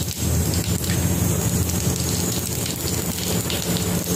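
Cumin seeds sizzling in hot oil in a kadhai as the tadka (tempering) starts: a steady, rain-like hiss full of fine crackles.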